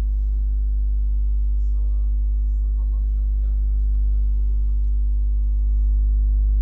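Loud, steady electrical mains hum with a stack of overtones, with faint, indistinct voices in the background a couple of seconds in.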